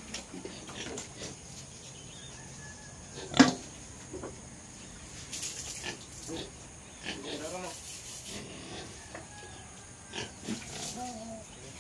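Native pigs grunting in short, scattered calls, with one sudden, much louder sound about three and a half seconds in.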